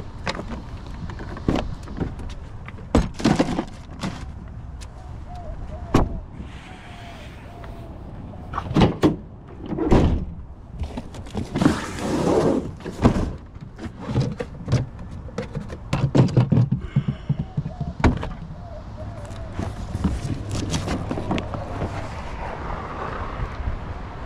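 Irregular knocks, thumps and clatter of plastic chemical buckets and cardboard boxes being handled in a pickup truck bed.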